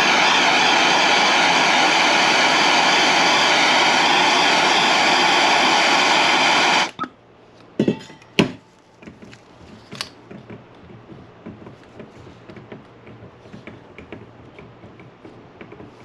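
Soldering torch flame hissing steadily as it heats a fluxed copper pipe joint for sweat soldering, shut off suddenly about seven seconds in. A few light clicks and taps follow.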